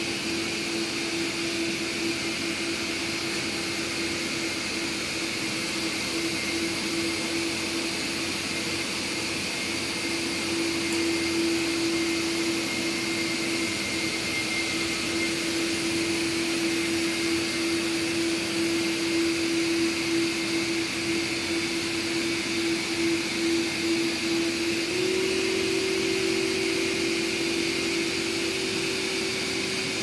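Several Samsung POWERbot R9350 robot vacuums running at once: a steady whirring hum with a constant drone tone. A second, slightly higher tone joins it near the end.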